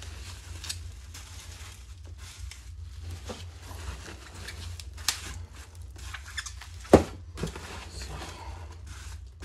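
Hands rummaging through styrofoam packing peanuts and bubble wrap in a cardboard box: a steady squeaking and rustling of foam and plastic, with scattered clicks and one sharp knock about seven seconds in.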